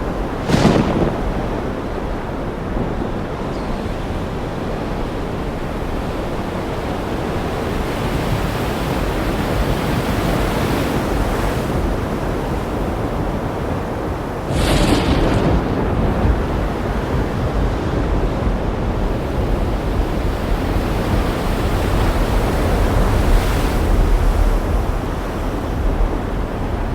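Thunderstorm: steady heavy rain with two sudden cracks of thunder, one right at the start and one about halfway through, and a deep rolling rumble that grows stronger after the second crack.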